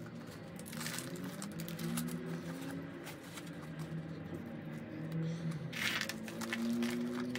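Dry bark chips rustling and pattering as they are dropped into a clear plastic orchid pot and pressed in by hand, loudest about a second in and again about six seconds in. A faint, low melody of held notes runs underneath.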